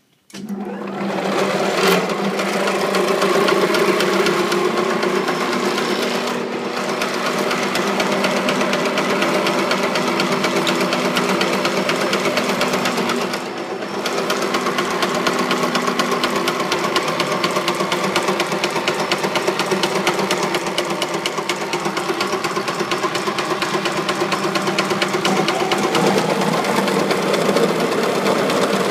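PP string-wound filter cartridge winding machine starting up and running, a fast even mechanical clatter over a steady hum, with brief dips about six and thirteen seconds in.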